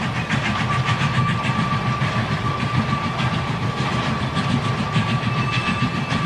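Model railway train running on the track: the wheels click rapidly over the rail joints and rattle, over a steady high whine from the locomotive's motor.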